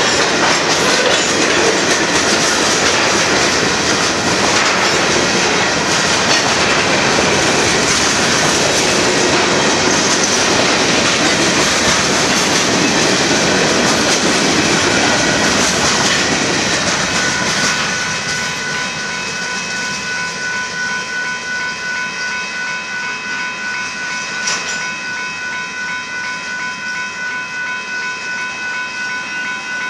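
Freight cars of a Union Pacific manifest train rolling past on the rails with steady wheel clatter. About two-thirds of the way through the noise drops off as the last cars move away, leaving a steady, slowly pulsing whine.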